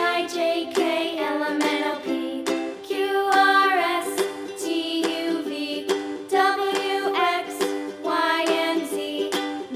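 Children's song music: a bright melody over a plucked-string accompaniment with a regular beat.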